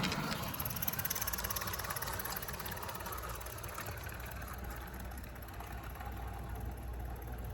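Accucraft Cranmore Peckett live steam model locomotive running under steam with a rapid, even chuffing, slowly getting quieter.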